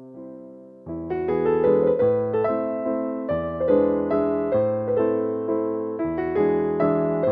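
Slow, romantic instrumental music on a piano or electric piano. A held chord fades for about a second, then a steady run of notes and chords comes in.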